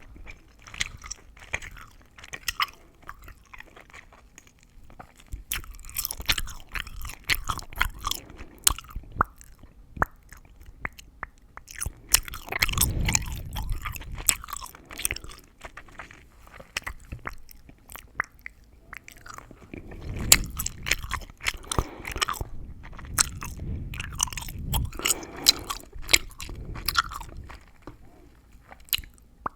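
Gum chewing with mouth sounds: a quick, irregular stream of crackles and clicks. It swells into louder spells a few seconds long, with quieter stretches between.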